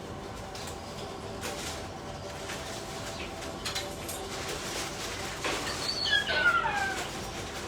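A pet parrot gives a few short, falling whistled calls about six seconds in, over a steady hum with scattered light clicks and rustles.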